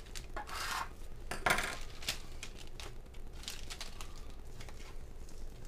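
Small metal screws and frame hardware clinking and clattering on a tabletop as a plastic parts bag is opened and handled, with brief rustles of the bag. It comes as a few short bursts and scattered clicks.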